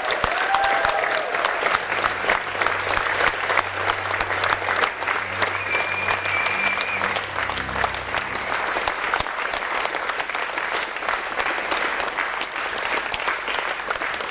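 Live concert audience applauding at the end of a song, a steady patter of many hands clapping.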